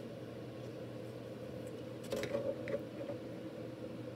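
Steady low room hum, with a few faint light taps and rustles about halfway through as a rigid plastic card holder is handled.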